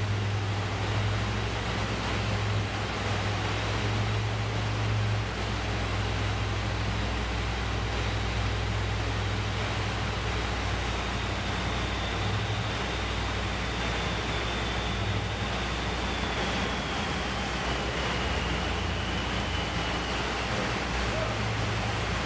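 Amphibious vehicle's engine running with a steady low drone while it sits on a ship's flooded well-deck ramp, over the wash of sea water surging around it.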